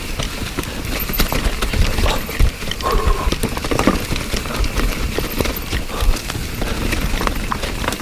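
Mountain bike descending a rough, leaf-covered trail: tyres rumbling over wet leaves, rocks and roots, with a fast irregular clatter of knocks and rattles from the bike, and wind rumble on the helmet-camera microphone.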